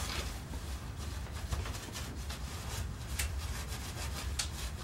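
A paper napkin pressed and rubbed over a page wet with spray ink, blotting off the excess: a few soft, irregular rustling rubs, the crispest about three seconds in.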